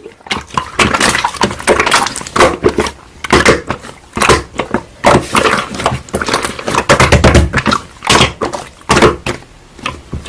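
Hands squishing and poking slime, giving irregular clusters of wet clicks and pops with short pauses between.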